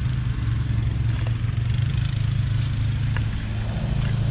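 An engine running steadily at a low idle, a constant low drone with a fluttering rumble underneath.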